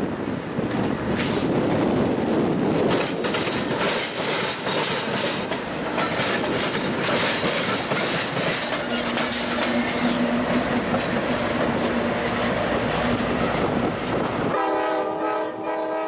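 CSX diesel locomotive passing close by, its engine running and its steel wheels clacking over rail joints and the diamond crossing. About a second and a half before the end, a train's air horn sounds a chord.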